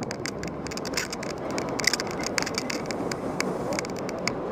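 Road bike riding along a city street in traffic: a steady rush of road, wind and traffic noise with many small irregular rattles and clicks from the bike.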